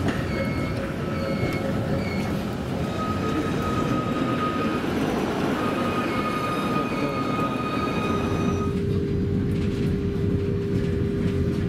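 City tram running on its rails: a steady rumble with thin high squealing tones from the wheels. About eight seconds in the sound changes abruptly to a steady low whine over the rumble, heard while riding inside the tram.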